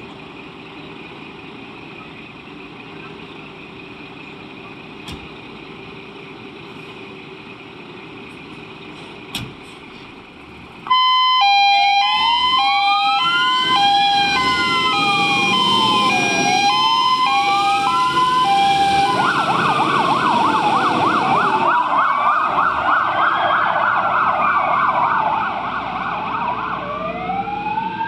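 Fire engine diesel idling steadily. About eleven seconds in, electronic sirens switch on loud: a stepped hi-lo two-tone over a slow rising-and-falling wail, then a fast warble for a few seconds, then the wail again. They fade somewhat near the end as the vehicles drive off.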